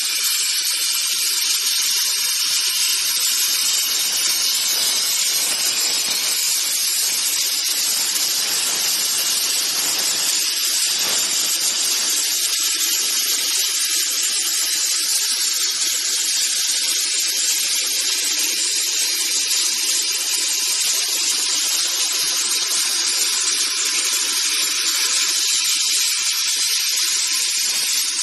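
CNC plasma cutting torch cutting steel pipe, a steady high hiss that holds level throughout.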